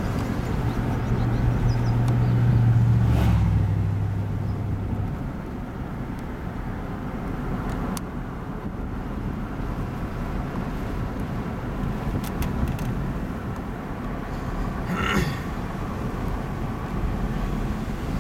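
Car driving along a road, heard from inside the cabin: a steady rumble of engine and tyre noise with some hiss, a stronger low drone over the first few seconds, and a few faint clicks.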